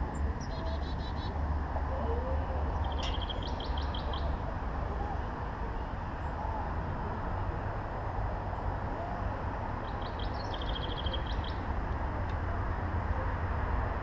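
Songbirds singing: three short trills of rapid, evenly repeated high notes, one near the start, one about three seconds in and one about ten seconds in, over steady low background noise.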